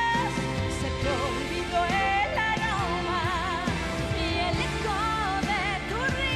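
A woman singing a pop song live into a microphone over full instrumental backing, holding long notes with a wide vibrato.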